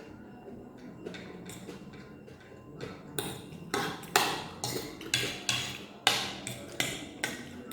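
Cutlery clinking and scraping on a plate while eating: a quiet start, then about a dozen sharp, irregular strokes over the second half.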